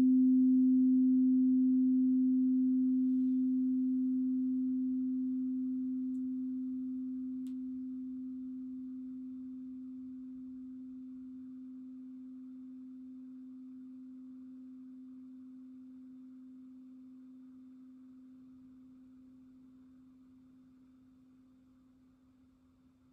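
A crystal singing bowl ringing out on one low, pure tone with faint higher overtones, fading slowly and evenly until it is barely audible near the end.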